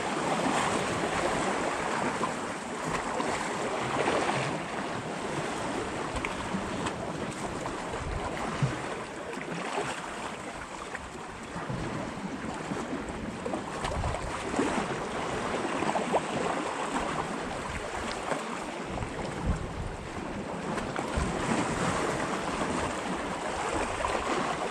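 Wind buffeting the microphone in gusts, over choppy water washing against the breakwall's rocks.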